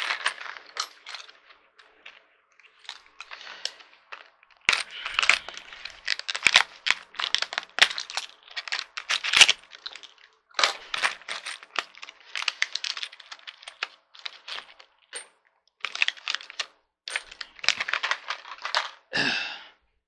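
A plastic packet of chair-assembly hardware crinkling and rustling as it is handled and opened, in irregular bursts with many sharp clicks.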